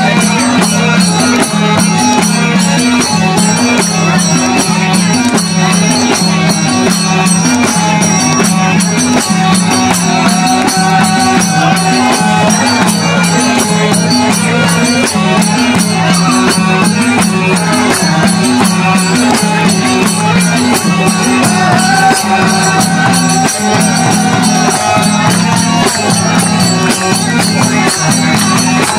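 Live Nepali folk bhajan dance music: a harmonium plays the melody over a steady, evenly repeating madal drum beat, loud and unbroken.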